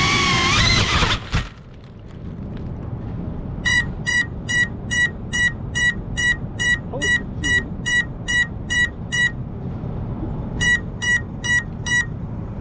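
FPV quadcopter's motors whining and rising in pitch, cut off suddenly about a second in as the quad crashes into a bush. A couple of seconds later its lost-model beeper starts: a run of short high beeps, about two and a half a second, a brief pause, then four more.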